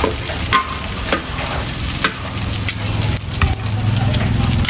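Steel ladle and spatula scraping and clanking in a large wok as rice noodles are stir-fried, with the oil sizzling under them. A low hum builds near the end.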